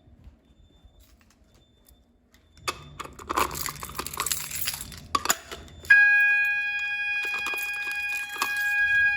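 A burst of crackling, rustling noise, then about six seconds in a System Sensor MASS fire alarm horn comes on suddenly and sounds a loud, steady, high-pitched tone, as the system is set off during a walk test.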